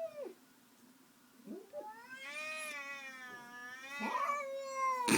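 Domestic cat caterwauling: a short call, a pause, then a long wavering yowl that swells and climbs again near the end, a territorial threat at another cat.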